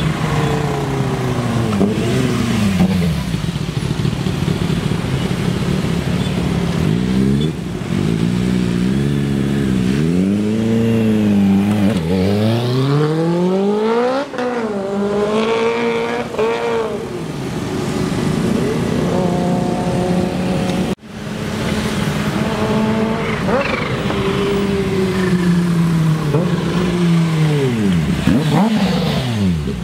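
Kawasaki H2's supercharged inline-four through a RaceFit aftermarket exhaust, accelerating hard and running up through the revs again and again: the engine note climbs steeply in pitch, drops back and climbs again.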